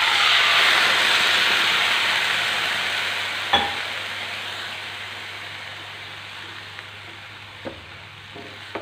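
Milk poured into a hot pan of bread crumbs roasted in ghee, sizzling loudly at once and slowly dying down. A sharp clink about three and a half seconds in, and a few light knocks of a spatula stirring near the end.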